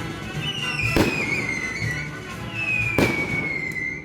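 Two fireworks shells bursting with sharp bangs about two seconds apart, over music with a repeated high note that slides downward.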